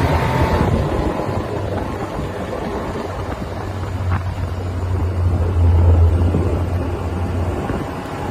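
Car engine and road noise: a steady low rumble that swells about six seconds in.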